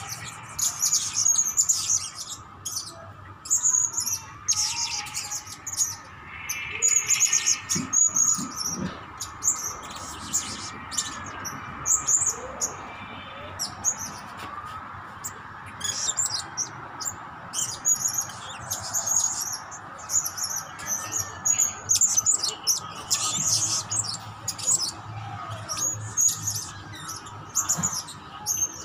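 Blue-crowned hanging parrot (serindit) calling from its cage: repeated bursts of short, high-pitched chirps.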